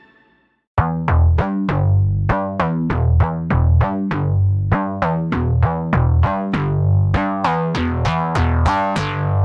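Background music. A fading piece dies away to silence, and about a second in a new electronic track starts: a quick, steady run of short notes, about three or four a second, over a bass line.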